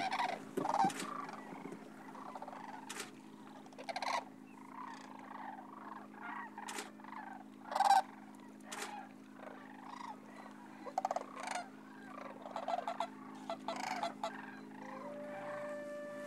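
A flock of sandhill cranes calling: many overlapping rattling bugle calls, some near and some farther off, the loudest about eight seconds in, over a steady low hum. A held tone comes in near the end.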